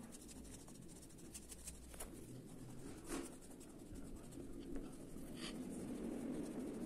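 Faint scratching of a pink colouring pencil on paper as outlines are traced, with a few brief louder strokes.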